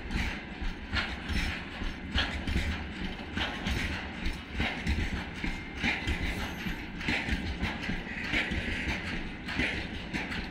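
Freight train wagons rolling past, covered hopper cars and gondolas, with a steady rumble. Their wheels clack over rail joints in a regular beat about once a second.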